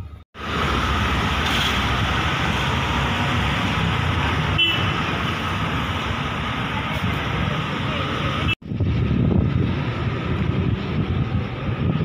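Steady road and engine noise heard from inside a moving vehicle, with a short horn toot near the middle. It cuts off abruptly about two-thirds of the way through and gives way to a more uneven rumbling noise.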